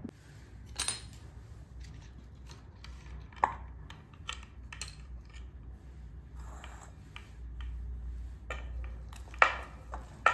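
Metal spoon knocking and scraping against a ceramic bowl and a wooden chopping board as chopped spring onions and garlic are pushed off the board into the bowl. The clicks and knocks are scattered, with sharper knocks about a second in and near the end.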